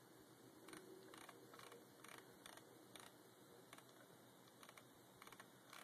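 Faint, irregular clicks of a computer keyboard over near-silent room tone.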